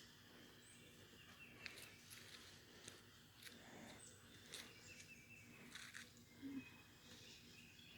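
Near silence: faint outdoor ambience with a soft high hiss, a few faint bird chirps and about five faint scattered clicks.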